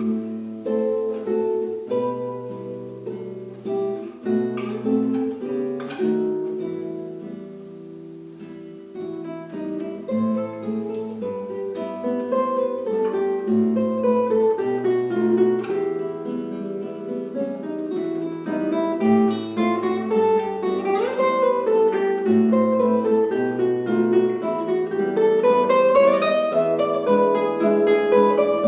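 Instrumental duet music: a plucked-string melody with rising and falling runs over held bass notes, growing louder toward the end after a quieter passage about eight seconds in.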